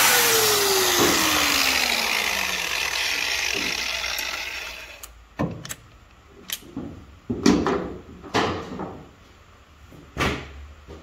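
DeWalt angle grinder with an abrasive disc cleaning up a steel bolt, its motor winding down in a steadily falling pitch over about four seconds before fading out. Then come several sharp metallic clunks and knocks, the last and loudest near the end as the grinder is set down on the steel housing.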